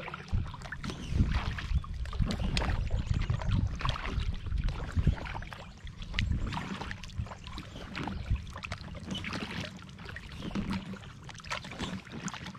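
Double-bladed paddles of an inflatable kayak dipping and splashing in lake water at an irregular pace, water dripping off the blades, over a steady low rumble.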